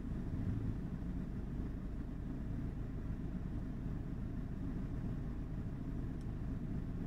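A car engine idling steadily while the car stands still, heard from inside the cabin as a low, even hum.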